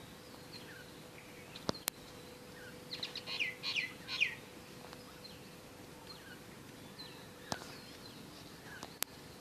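Small birds chirping faintly in the background, with a quick run of short falling chirps about three to four seconds in, over a faint steady hum. A few sharp clicks break in, two near the start and two near the end.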